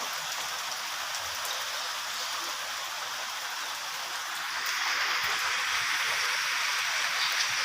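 Steady rain falling, growing a little louder about halfway through.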